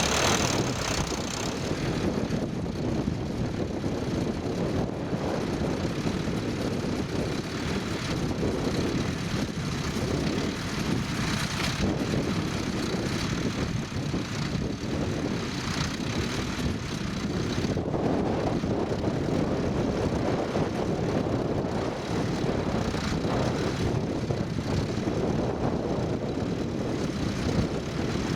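Tractor engine running at a ploughing match, under wind buffeting the microphone, the rumble swelling and easing every few seconds.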